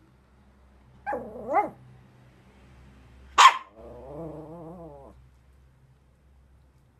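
Small dog begging for food: two short rising whines about a second in, one sharp bark near the middle, then a wavering whine-growl lasting about a second.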